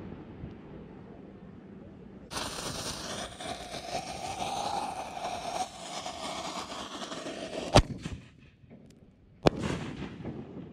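6-inch consumer canister firework shell fired from a mortar tube close by. A hiss of about five seconds, typical of the lit fuse, ends in a sharp bang as the lift charge launches the shell. About two seconds later a second sharp bang comes as the shell bursts overhead, followed by brief crackling.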